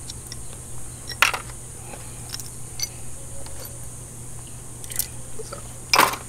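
Scattered clicks and clinks of loose bolts and a small hand tool being handled, with a sharper clack about a second in and a louder one near the end.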